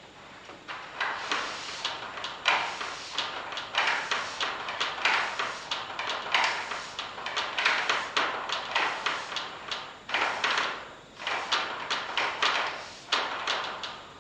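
A chalkboard being wiped with a hand-held eraser: a long series of quick rubbing strokes, each a short scrubbing swish, with a brief pause about ten seconds in.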